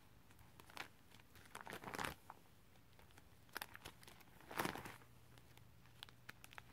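Plastic binder pocket pages holding trading cards crinkling faintly as they are turned, in a few short rustles, the loudest about two seconds in and again past the middle.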